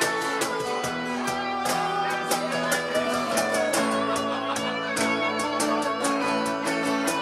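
Live acoustic and electric guitar duo: an acoustic guitar strummed in a steady rhythm, with an electric guitar playing melody lines over it, some notes bending in pitch.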